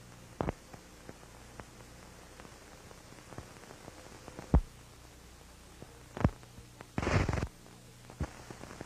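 Low steady hum and hiss with a few sharp clicks and pops scattered through, and a short crackling burst about seven seconds in: background noise of an old recording between two commercials.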